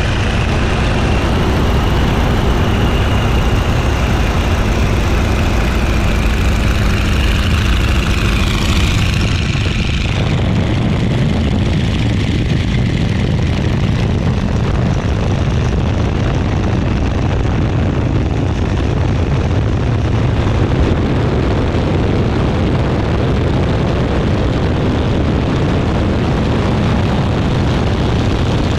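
Boeing Stearman biplane's radial engine and propeller running under power, heard from the open cockpit with heavy wind rush. In the first part a high tone slides slowly downward; about ten seconds in the higher sound drops away suddenly, leaving a steady low engine drone and wind.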